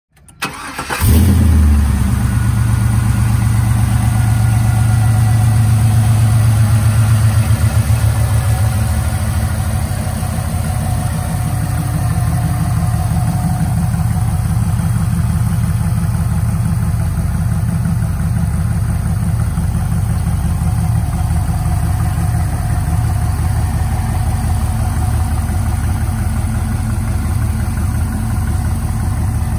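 A 1998 Chevrolet Camaro Z28's LS1 V8 starting: it cranks briefly and catches about a second in, runs at a raised idle, then settles to a lower, steady idle around nine seconds in, with a deep exhaust rumble.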